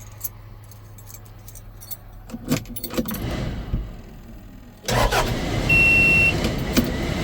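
Keys jangling and clicking at the ignition. About five seconds in, the Case machine's diesel engine cranks and starts, then runs steadily, with a short high beep just after it catches.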